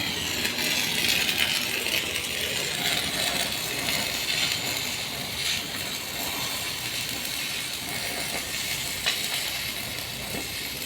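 Electric arc of a stick (electrode) welder on a 500-amp transformer welding machine set to about 200 amps, crackling and hissing steadily, with a few sharp pops. The arc is being run until the metal is cut through.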